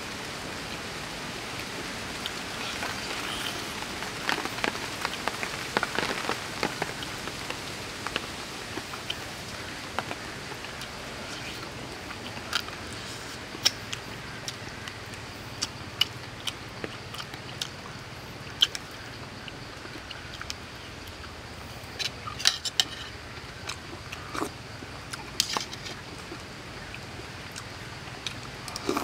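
A person eating close to the microphone: chewing and sharp, wet lip-smacking clicks, bunched a few seconds in and again near the end, over a steady background hiss.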